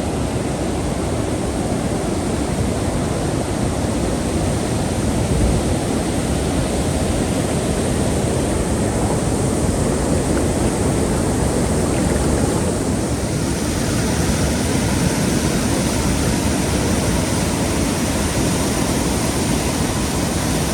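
Steady rushing of a small waterfall and rapids on a creek, loud and close.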